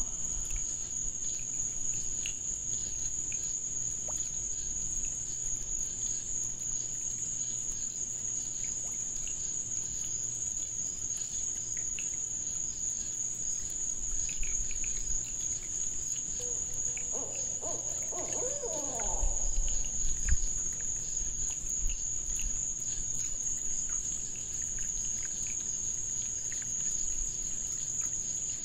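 Steady high-pitched chorus of night insects, with faint scattered small ticks. A brief lower-pitched call rises over it about two-thirds of the way in.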